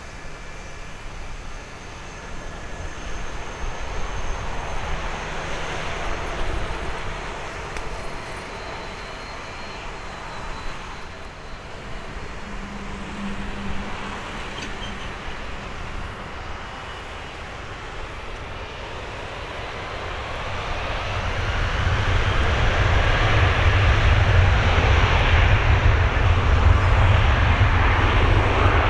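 Airbus A330-200's Pratt & Whitney PW4000 turbofans running at low taxi power, then spooling up to takeoff thrust about twenty seconds in, becoming much louder with a deep rumble.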